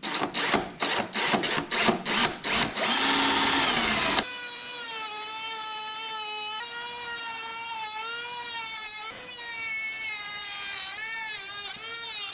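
A power drill boring through balsa in short rapid pulses, about four a second, then running steadily for a moment. About four seconds in this gives way to a Dremel rotary tool with a cutoff wheel spinning at high speed: a steady high whine that wavers and dips in pitch as the wheel cuts the balsa.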